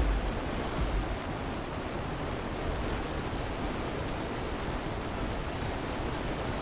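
Steady rush of wind buffeting the microphone of a camera mounted on a motorcycle riding at speed, with no clear engine note through it.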